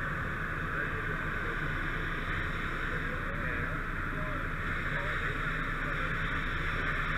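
Steady hiss of a booster-line nozzle spraying firefighting foam under the truck bed, over a low steady rumble, with faint voices in the background.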